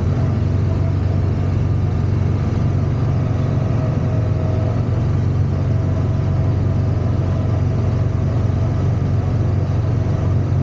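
Track-ride race car's motor running steadily as the car drives along its guided track: a constant low drone with a faint steady whine above it.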